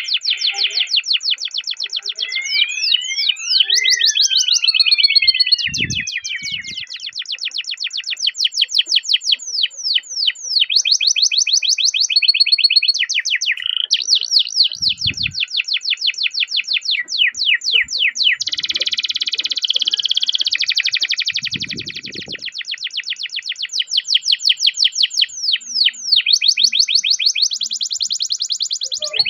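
Domestic canary singing a long, unbroken song of fast rolling trills, rapid repeated notes that change from one run to the next, with a few sweeping whistled notes near the start.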